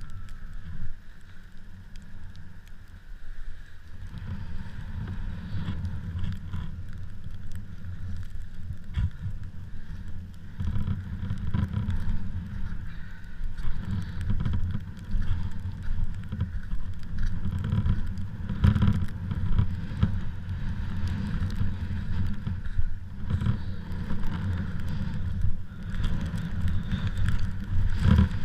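Strong gusty wind buffeting the microphone: a low, uneven rumble that grows stronger about four seconds in.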